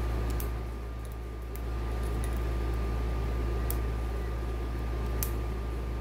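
A few faint, separate metallic clicks from a hook pick and tension wrench working the pins inside a lock cylinder, over a steady low hum.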